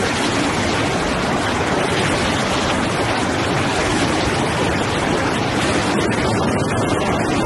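Chicken-feet peeling machine running: a loud, steady rushing din of machinery and water.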